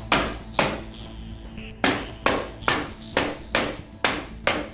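White rubber mallet striking a wooden drawer box during assembly: two blows, a pause of about a second, then seven more at a steady pace of about two a second.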